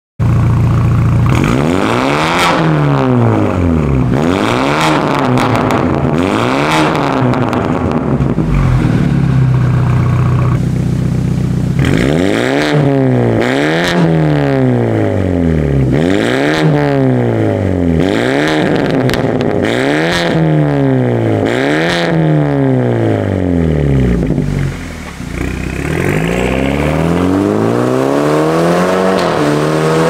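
BMW F30 328i's N20 turbocharged four-cylinder through a Fi Exhaust valvetronic catback and catless downpipes, with the exhaust valves open. It is revved again and again at standstill, each rev rising and falling about every two seconds. A few seconds before the end the engine note climbs steadily as the car accelerates.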